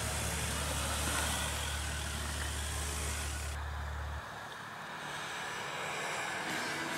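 Pickup truck engine running close by, a steady low drone that cuts off suddenly about four seconds in; after that a fainter, more distant engine carries on.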